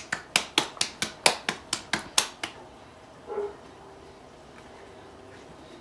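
Buñuelo dough being slapped back and forth between the palms to flatten it, about four sharp slaps a second, stopping about two and a half seconds in. A brief, higher sound follows about a second later.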